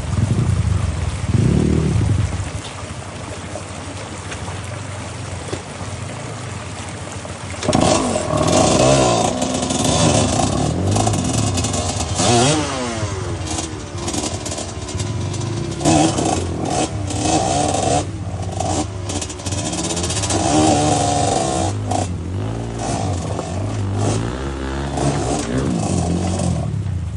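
Dirt bike engine revving in short bursts, its pitch rising and falling again and again as the bike climbs over river boulders under varying throttle. It is quieter at first and gets much louder about eight seconds in, then keeps revving up and down.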